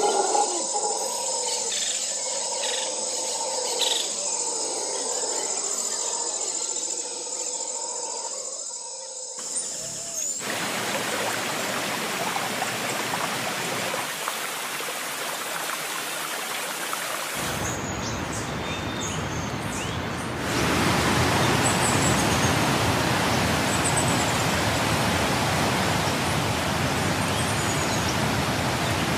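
Waterfall rushing, a steady wash of falling water that grows louder about two-thirds through, with faint bird chirps in the first part.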